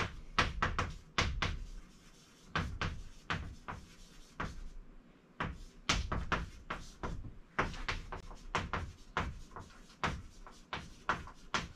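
A pen or marker writing on paper: a quick run of short scratching strokes and taps, with a brief pause about five seconds in.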